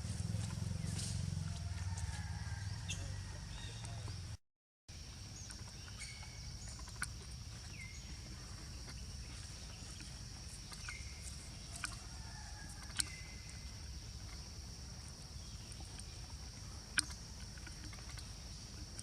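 Outdoor ambience: a steady high-pitched hum over a low rumble, with scattered sharp clicks and a few short chirps. The sound cuts out completely for about half a second around four and a half seconds in.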